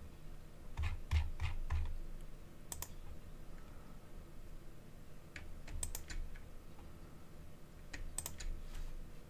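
Computer mouse clicks and keyboard key taps in a few short clusters: four taps about a second in, then clicks near three, six and eight seconds, made while shift-clicking to select several layers.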